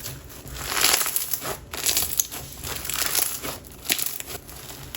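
Slime being stretched and pressed by hand, giving a steady run of crackling, crinkly clicks and pops. The slime is very non-tacky and a little rippy when pulled fast.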